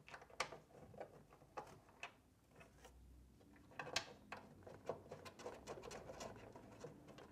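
Faint, irregular clicks and light knocks of a screwdriver driving screws into the rowing machine's metal frame, the sharpest about four seconds in.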